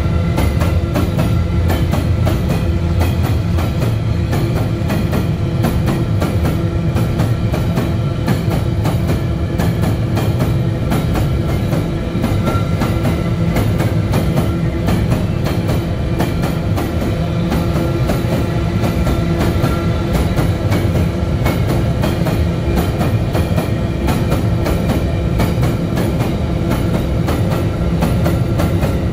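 A long string of empty iron-ore wagons rolling past at speed: a steady heavy rumble with rapid, continuous clatter of wheels over the rails and a faint steady whine over it.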